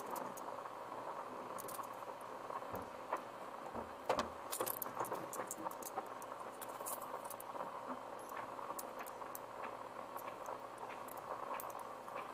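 Plastic building-block pieces of a toy robot car clicking and rattling as hands handle it and pull pieces off, a scatter of small irregular clicks.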